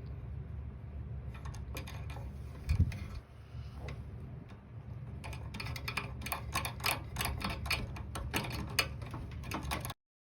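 Microwave oven running with a steady low hum. There is a single loud knock about three seconds in, then a fast, irregular run of sharp clicks through the second half. Everything cuts off abruptly near the end.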